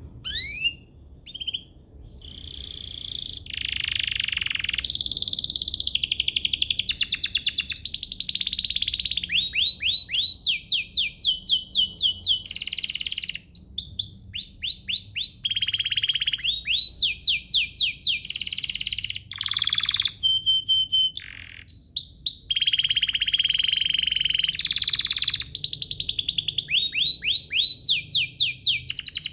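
Domestic canary singing one long, nearly unbroken high-pitched song: fast runs of rapidly repeated rising notes alternate with sustained rolling, buzzy trills, with only a few short breaks.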